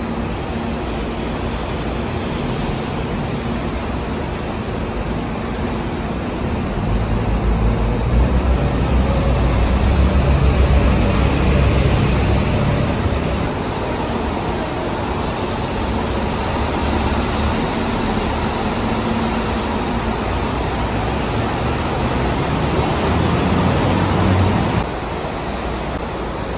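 City buses running and pulling past, a steady engine rumble with traffic noise. The rumble grows louder for several seconds about a third of the way in, swells again later and then drops off suddenly near the end.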